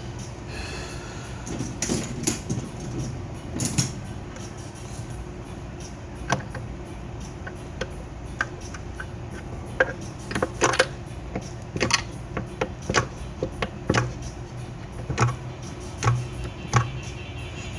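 Irregular clicks and light knocks of small parts and tools being handled on a workbench, a few at a time, over a steady low hum.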